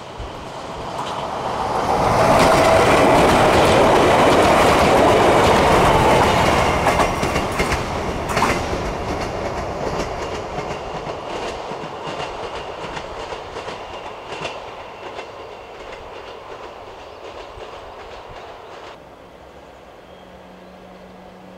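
A train passing close by, loudest a few seconds in, its wheels clacking over the rail joints as it recedes and fades away.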